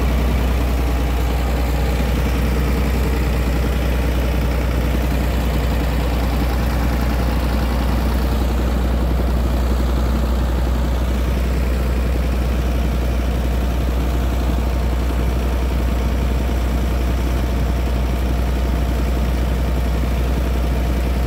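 A pump engine running steadily at an even speed while it draws water out of the pond through a large pipe.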